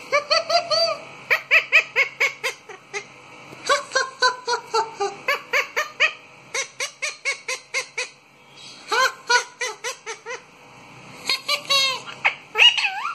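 Rose-ringed parakeets calling: rapid runs of short, sharp calls, about five a second, in several bouts with brief pauses, with a few longer gliding calls near the end.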